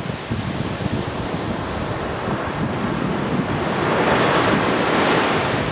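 Surf on a sandy beach: waves washing up and back over the shore, with one breaking wave swelling louder about four seconds in.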